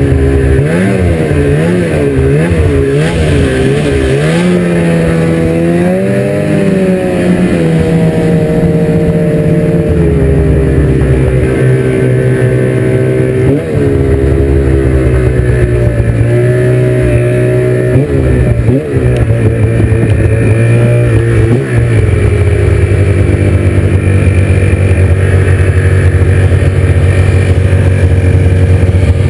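Ski-Doo MXZ800X snowmobile's two-stroke twin engine running under way. Its pitch rises and falls quickly several times in the first few seconds, then holds steady, with brief dips about halfway through and again after about 19 and 22 seconds.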